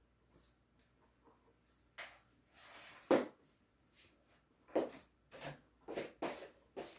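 A pen scratching on paper, then a sharp knock and a few lighter knocks and rustles as the pen and paper are handled on the desk.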